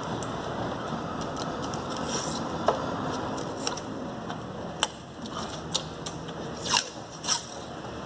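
Adhesive tape being pulled off its roll in a series of short rips, the loudest two near the end, over steady background noise.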